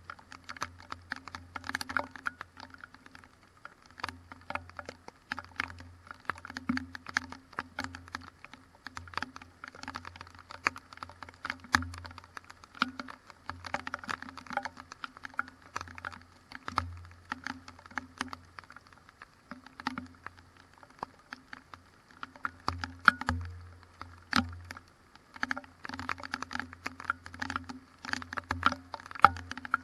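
Raindrops in a thunderstorm striking close to the microphone, making dense, irregular sharp taps, with a low hum coming and going underneath.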